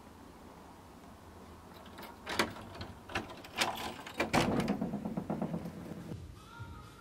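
A door's handle and latch clicking and knocking several times, then the door being pushed open with a low rushing scrape. Soft music comes in near the end.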